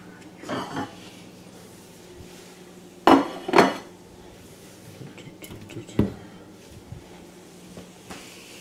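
A frying pan being handled on a gas stove's grates: a short rattle about half a second in, two loud clanks about three seconds in, and a single knock about six seconds in.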